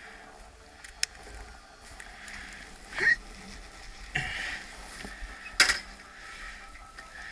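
Handling noises on a stopped motorcycle before its engine is started: a few sharp clicks and knocks, the loudest about three and five and a half seconds in, with soft rustling between.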